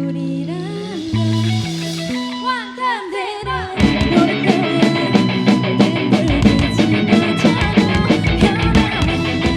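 Live rock band playing: held bass guitar notes under bending, wavering guitar lines. About four seconds in, the drums and the full band come in louder, with a steady beat.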